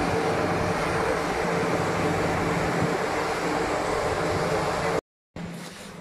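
Steady machinery noise with a constant hum, from a dust-suppression mist cannon's fan and a tracked excavator's diesel engine running close by. It cuts off abruptly about five seconds in, and quieter site noise follows.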